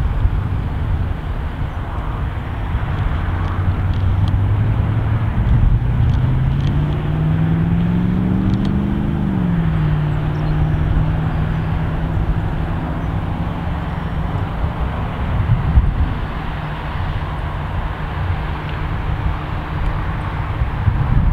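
An engine hum that climbs slowly in pitch, drops back about nine seconds in, then holds a steady note, over a constant low rumble and hiss.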